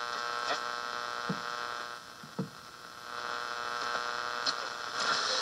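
AM band of a 1993 GE 7-4612B clock radio tuned between stations: a steady buzzing hum of several held tones over hiss from its small speaker, with a few soft knocks.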